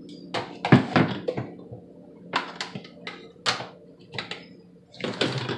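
Irregular clunks and knocks of a countertop blender being handled, lifted and set down on the counter and its plug pushed into a wall outlet, over a faint steady hum.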